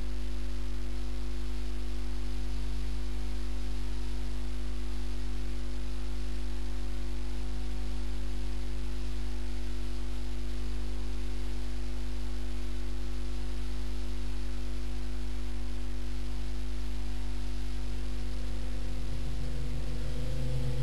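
Steady electrical mains hum with a layer of hiss, unchanging.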